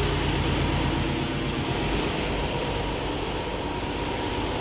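Steady machinery noise of a ship's engine room: a low hum with a broad rush over it, easing off a little in the second half.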